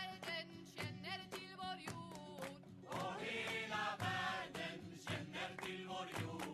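Background music: a song with singing voices over a beat.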